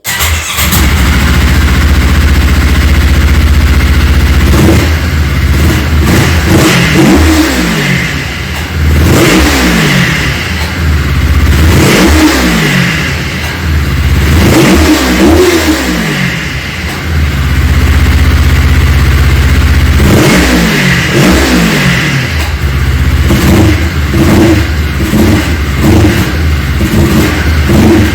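Yamaha Phazer snowmobile's four-stroke twin engine running loud and being revved in repeated throttle blips, each rising and falling back, with several quick blips in a row near the end. It now revs freely, its throttle override (TORS) fault cleared, which the owner puts down to a poor switch contact.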